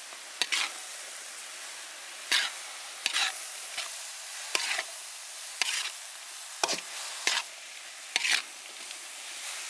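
Shredded cabbage, carrot and egg sizzling in a hot wok as a metal spatula stirs and tosses them. The spatula scrapes and clanks against the wok about a dozen times at irregular intervals over the steady sizzle.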